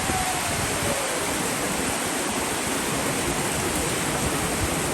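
Water rushing steadily as it spills from one hot-spring pool down into the next.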